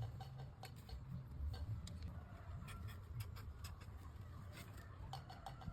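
Light irregular clicks and taps, some in quick clusters, over a low steady hum.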